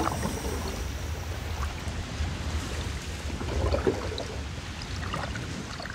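Sea water splashing and sloshing over a steady low rumble.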